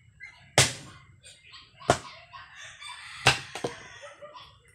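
Axe chopping firewood: three sharp blows a little over a second apart, the third followed by a lighter knock. Chickens cluck and call in the background.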